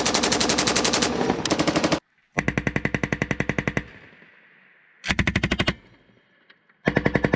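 M240 belt-fed 7.62 mm machine gun firing rapid automatic bursts, four of them, each a fast even string of shots. The first burst cuts off abruptly about two seconds in, and the third is short.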